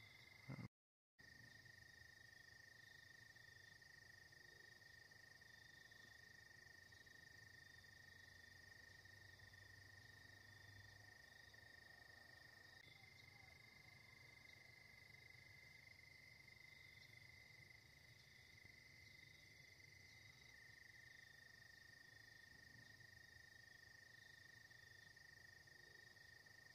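Faint, steady outdoor chorus of insects such as crickets: several continuous high trills at different pitches that run on without a break. The sound cuts out briefly about a second in.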